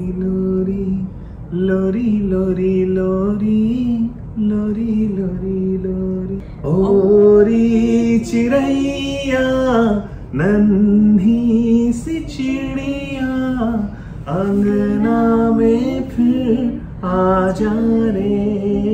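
A man and a woman singing a song in long held notes, the singing growing louder and fuller about seven seconds in.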